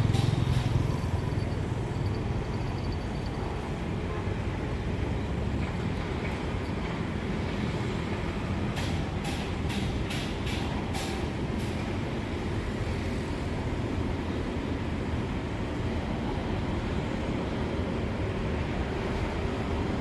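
An engine running steadily with a low rumble, with a few short clicks about halfway through.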